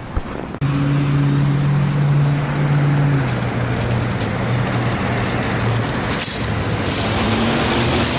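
Motor vehicle engine running steadily while driving, with a low steady hum over road noise; the engine note shifts lower about three seconds in.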